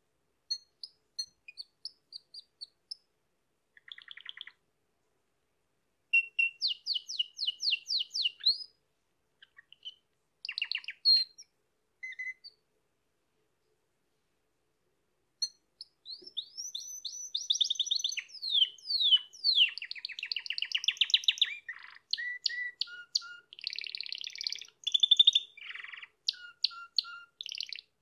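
Domestic canary singing: short phrases of quick repeated notes and rapid trills, a pause of a few seconds just before the middle, then one long unbroken run of trills and rolls.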